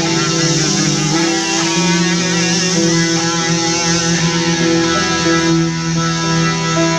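Background music led by guitar, with sustained notes and vibrato.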